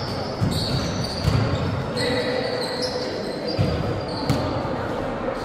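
Basketball play on an indoor hardwood court: the ball bouncing with dull thuds and sneakers squeaking in short high chirps several times, with players' voices underneath.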